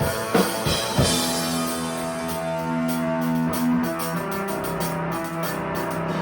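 Rock band jamming: a few drum kit hits in the first second, then guitar holding long sustained notes that shift to new notes about four seconds in.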